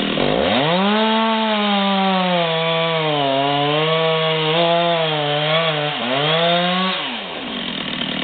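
Two-stroke chainsaw revved to full throttle about half a second in, its pitch sagging twice as it works through wood. The throttle is released around seven seconds in and the pitch drops back toward idle.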